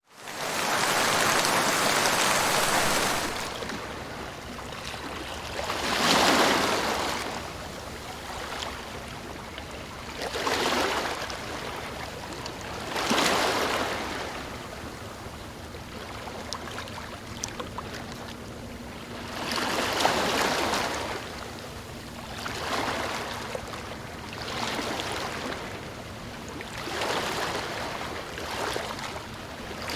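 Calm sea waves washing onto a sandy beach, each one swelling into a soft hiss and fading again, one every few seconds.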